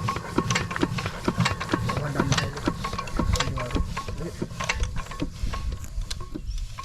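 Machinery clicking and knocking in an uneven rhythm of roughly three knocks a second over a low rumble, with a steady high hum underneath.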